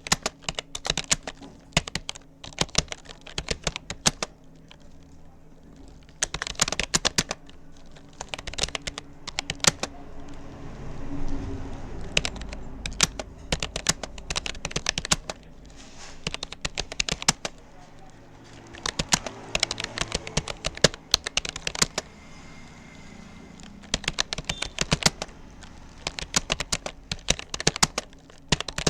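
Keystrokes on a Rapoo computer keyboard: quick runs of key clicks in bursts, broken by short pauses as the typist works through a typing test. A low background rumble rises and fades around the middle.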